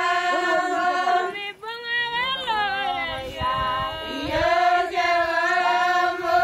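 Maasai villagers singing together in a chant-like song, a group of voices holding long notes, with gliding phrases in between.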